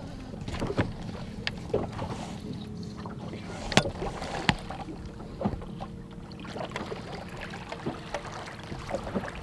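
Bass boat on open water: a steady low hum with scattered sharp knocks and clicks, the loudest two a little under four seconds in and again about half a second later.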